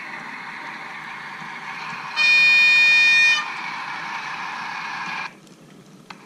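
Model diesel locomotive sounding its horn once, a single steady note of just over a second, over the steady running noise of the model train. The running noise cuts off suddenly about five seconds in, followed by a small click.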